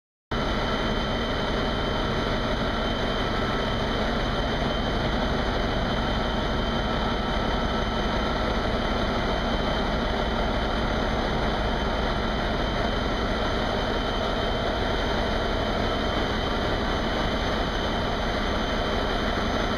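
Large diesel marine engine running in a barge's engine room: a loud, steady drone of about 100 dB that cuts in abruptly just after the start and holds level, with a few faint steady whining tones above it.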